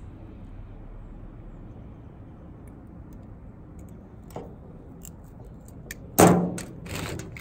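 Hand work with a wire crimper and wires, a small click or two, then a loud sudden clatter about six seconds in as the plastic organizer box of crimp terminals is handled and its loose terminals rattle, followed by a few sharper clicks.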